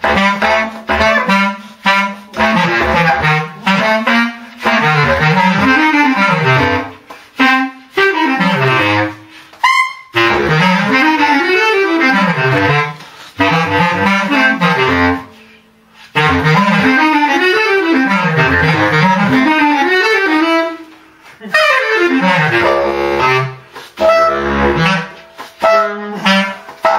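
Two bass clarinets playing a transcribed jazz bass clarinet solo together: fast runs that sweep up and down over a wide range with big leaps, broken by a few short pauses for breath.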